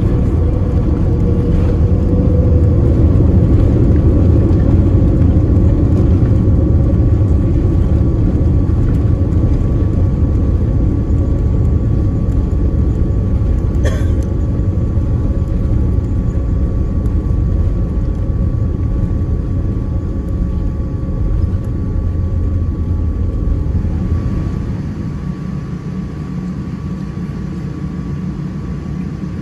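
Cabin noise inside a Boeing 787-9 on its landing rollout: a loud, deep rumble of the engines and the wheels on the runway, easing off gradually as the airliner slows. About 24 seconds in it drops to a quieter, steady cabin hum.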